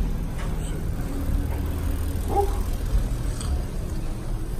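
Steady low rumble of a cruise ship's interior, with a short faint tone about two and a half seconds in.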